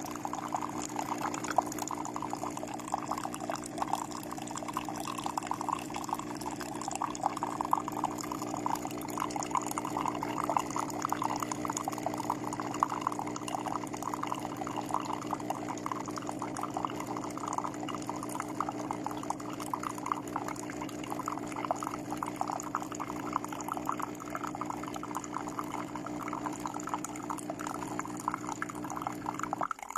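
De'Longhi TrueBrew drip coffee maker brewing: a steady hum from the machine while hot coffee streams and trickles into the cup.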